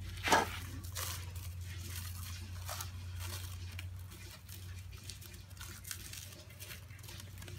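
Plastic cling film (food wrap) crackling and tearing as a strip is peeled off the roll by hand. There is one sharp crackle about a third of a second in, followed by fainter crinkles.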